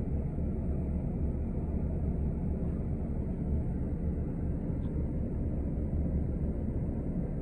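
Steady low engine and road noise of a city transit bus, heard from inside the passenger cabin.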